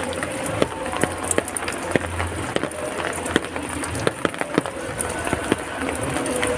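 Heavy rain falling steadily, with many sharp, irregular drops striking nearby surfaces.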